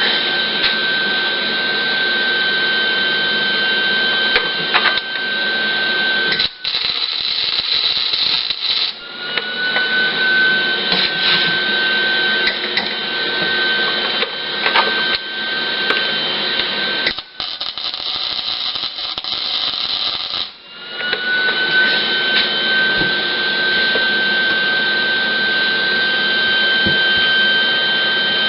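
Lincoln 140 wire-feed welder running flux-core wire: a steady crackling arc with a high whine from the wire feed. The arc stops and restarts twice, the whine gliding up briefly each time it starts again.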